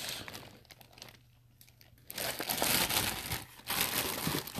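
Clear plastic packaging bag crinkling as it is handled, in two rustling bouts starting about two seconds in.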